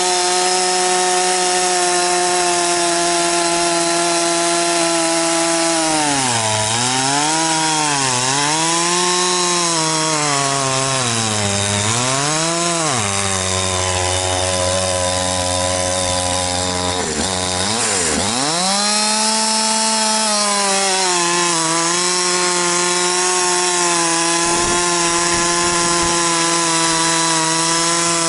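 Two-stroke gasoline chainsaw running at high revs while sawing through a large log. Its pitch dips several times as the bar is loaded in the cut, settles at a lower steady speed for a few seconds around halfway, then drops briefly and revs back up to full speed for the rest.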